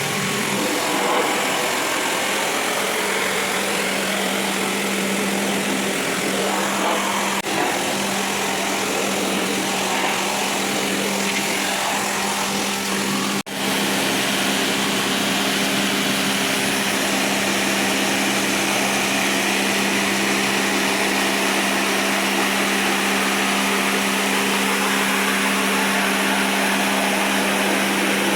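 Electric cleaning machine used on a package air-conditioning unit running steadily: a constant motor hum under an even hiss, with a brief break about thirteen seconds in.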